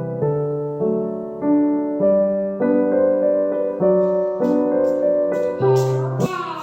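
Background music: a keyboard with a piano sound plays a gentle run of notes and chords, changing about every half second. Light high ticks join in about four seconds in.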